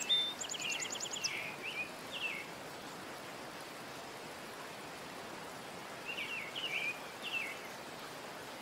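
Small birds chirping in two short runs of quick high notes, one at the start and one about six seconds in, over a steady hiss like rain or running water.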